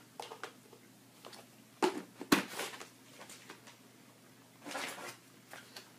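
Handling noises from items and packaging being taken out of a cardboard subscription box: a few sharp knocks and clicks, the loudest about two seconds in, and a brief rustle near the end.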